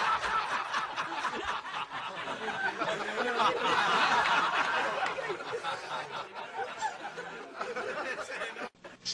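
A crowd laughing at a joke's punchline, swelling about four seconds in, then dying away and cutting off abruptly near the end.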